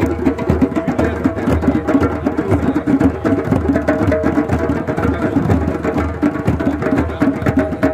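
A drum circle of djembe hand drums played together in a fast, dense rhythm.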